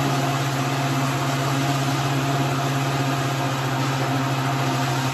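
Countertop blender motor running steadily at one constant pitch, blending a thick smoothie of frozen fruit until no chunks are left.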